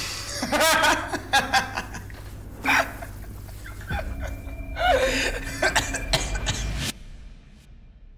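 A person laughing in two rounds of chuckles over background music, both dropping away about seven seconds in.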